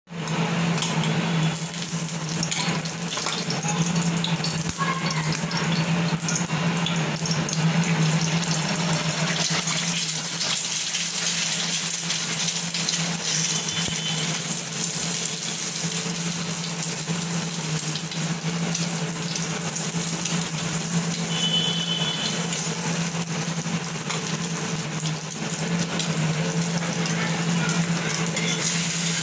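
Egg frying in oil on an iron tawa: a steady crackling sizzle with a low steady hum underneath.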